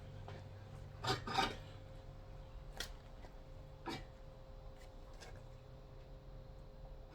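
A few short knocks and light rubbing of metal engine parts and tools being handled, two knocks close together about a second in and single ones later, over a steady low hum.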